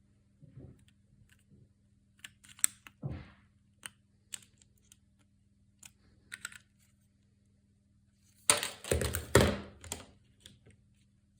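Plastic clicks and clacks of keycaps on a mechanical keyboard with custom linear switches, made for the Amiga, as the keys are handled and pressed. Scattered single clicks give way to a quick flurry of louder clacks about eight and a half seconds in.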